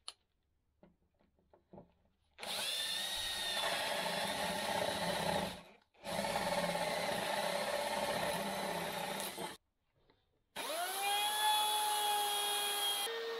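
Makita 18V cordless drill running twice for about three seconds each, boring into plywood. Near the end a Black & Decker router motor starts up, its pitch rising quickly and then holding steady.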